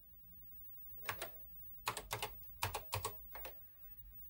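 Keys clicking on a NASCOM 1 computer's keyboard as a short command is typed: about eight separate keystrokes, starting about a second in.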